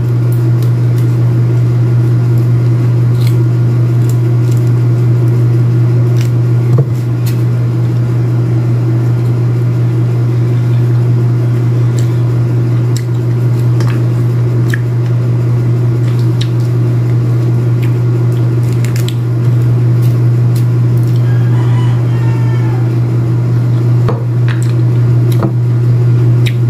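A loud, steady low hum runs throughout. Under it are faint soft squishing sounds and small clicks as a pomelo's pith and segments are pulled apart by hand.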